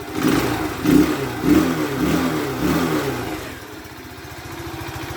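Alpha Motoland Scout 110's 110 cc single-cylinder four-stroke engine being blipped up and down about five times, then settling back to a steady idle about three and a half seconds in. The engine has just been rebuilt with a new oil pump, piston and cylinder head, and is running after the head-knock repair.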